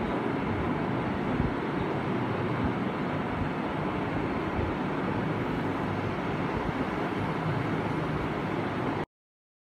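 Steady background din with no distinct events, cutting off abruptly into silence near the end.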